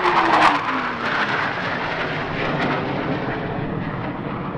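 Blue Angels F/A-18 Hornet jet flying past, its engine whine falling in pitch as it goes by. Loudest about half a second in, then a steady jet noise that slowly fades.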